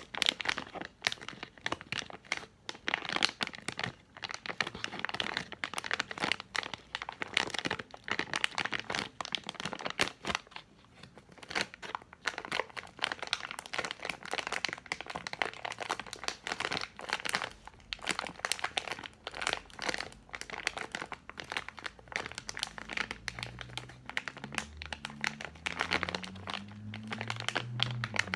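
Plastic candy packaging, a bag of Tootsie Rolls, crinkled and handled close to the microphone for ASMR, in a continuous run of irregular crackles.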